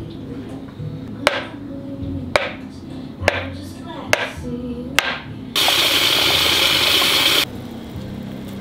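Chef's knife cutting through a block of silken tofu, knocking on a wooden chopping board five times about a second apart. Then a loud, even hiss for about two seconds that cuts off suddenly.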